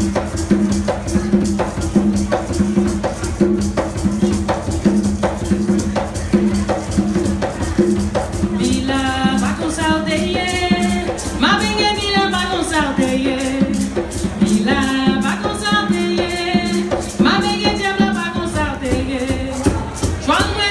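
Live Haitian Vodou music: a gourd rattle shaken in a steady beat, about two strokes a second, with a hand drum under a low held tone. From about nine seconds in a woman sings over it.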